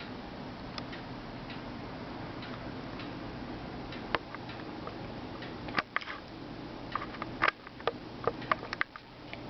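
Irregular small clicks and taps over a steady low hum, sparse at first and coming thick and fast in the last three or four seconds.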